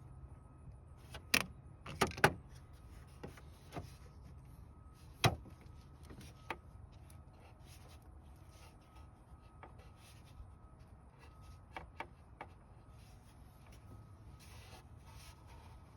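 Sharp clinks and knocks of hand tools and parts as the upper radiator hose is worked loose: three close together a little over a second in, a loud one about five seconds in, then a few fainter taps.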